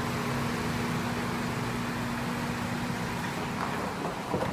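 Steady hum of a car running, heard from inside the cabin, with a held low tone under a level haze of engine and fan noise.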